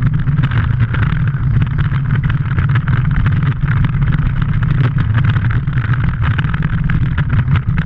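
Steel roller coaster train running fast along its tubular track: a steady, loud rumble of wheels on rail with many quick clicks and rattles, mixed with wind rushing over the front-mounted microphone.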